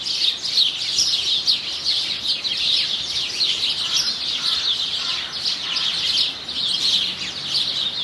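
Small songbirds chirping together: a dense, continuous chatter of short, high, quickly falling notes.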